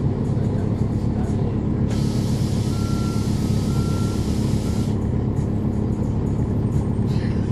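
Cummins ISL9 diesel engine of a NABI 40-SFW transit bus running steadily, heard from the rear of the bus. About two seconds in, a hiss of released air lasts some three seconds, with two short high beeps inside it.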